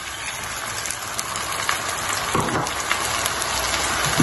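Cubed potatoes and beaten yogurt sizzling and crackling in hot oil in a frying pan, the sizzle building gradually as the pan heats back up after the yogurt goes in.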